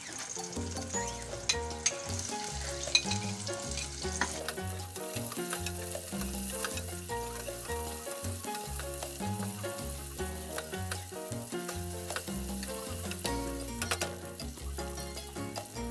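Garlic and sliced onions sizzling in hot oil in an aluminium pot, with a metal ladle clinking and scraping against the pot as it stirs. The sizzle gets louder about four seconds in. Background music plays underneath.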